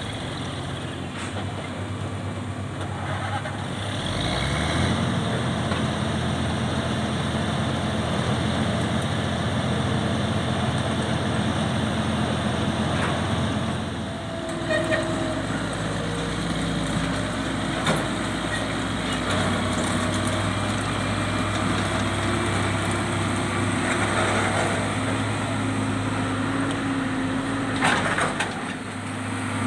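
Diesel engine of a loaded Volvo logging truck running under load as it pulls away, its note rising and getting louder about four seconds in, with a couple of short hisses near the end.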